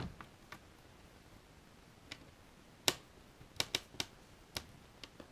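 Hands working on an open laptop: a handful of sharp, irregular clicks and taps from plastic parts and small tools, the loudest about three seconds in.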